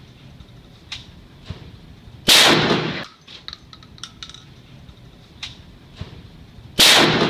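Two 12-gauge shotgun slug shots, about four and a half seconds apart, each with a short reverberant tail from the indoor range. Fainter sharp clicks and knocks fall between them.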